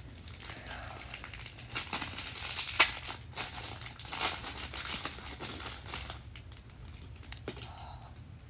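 Thin plastic wrapping around a small mochi squishy toy crinkling in irregular bursts as it is handled and pulled open. It is busiest in the middle, with one sharp snap a little under three seconds in.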